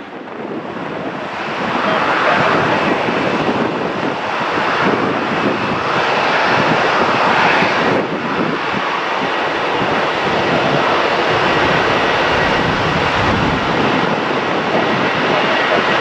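Twin-engine jet airliners on final approach: a loud, steady rush of jet engine noise that builds over the first couple of seconds. It dips briefly about eight seconds in, then a second approach goes on with a faint high whine.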